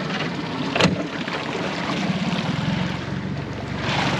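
Small 8-horsepower Yamaha outboard motor running steadily under way, pushing an aluminium dinghy. A sharp knock comes about a second in, and the rush of water grows louder near the end as the boat swings into a tight turn.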